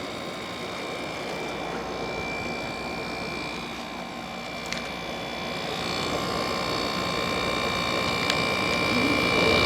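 Small General Electric window air conditioner running, its fan blowing air with a steady hum and thin whining tones, growing louder over the last few seconds.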